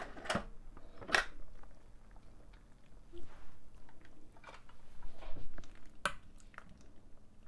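Instant Pot lid clicking and knocking as it is twisted free and lifted off, then a spatula stirring thick vegetable soup in the stainless inner pot, with soft scrapes and wet squishes. The sharpest clicks come near the start and again about six seconds in.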